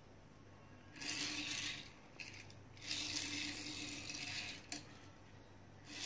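Lightning McQueen die-cast toy car's small wheels rolling over a ceramic tile floor: a few short rolling rattles, the longest about a second and a half, with a sharp click a little before the end.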